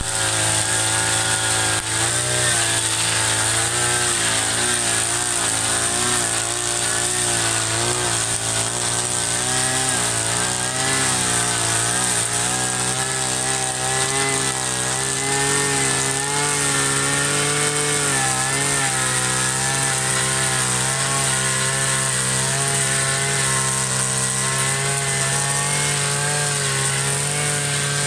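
Petrol brush cutter running at high revs while cutting tall grass, its engine note wavering up and down as the cutting head takes the load of the grass.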